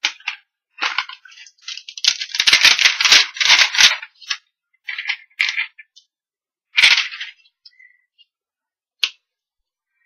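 Clear plastic stamp sheet crinkling and crackling as it is flexed and handled, in several bursts with the longest about two seconds in, then a single sharp click near the end as a small letter stamp comes off the sheet.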